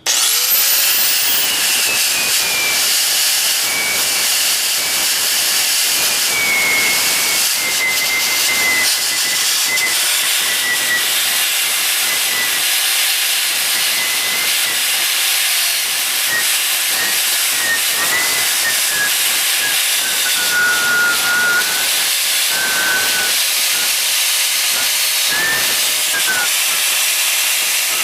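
Grinder spinning up and grinding metal steadily, its whine sinking slowly in pitch under load. It is grinding down a hammered threaded end so the nut will thread on.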